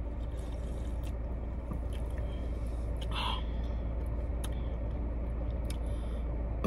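Drinking from an energy-drink can: a sip, then small swallowing and mouth clicks, with one short gulp about three seconds in. A steady low hum of the car cabin runs underneath.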